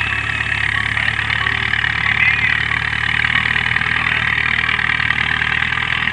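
Al-Ghazi tractor's diesel engine running steadily at low speed.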